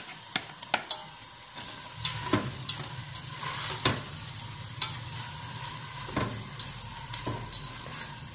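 Washed coarse bulgur poured into a stainless steel pot of frying tomato, onion and garlic, then stirred in with a spoon: a steady sizzle with irregular sharp scrapes and knocks of the spoon against the pot.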